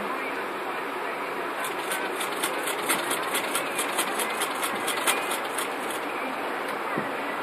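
Paper pages of a manga paperback being flipped by hand: a quick run of crisp page flicks, about five a second, starting after a second and a half and stopping about a second before the end, over a steady hiss.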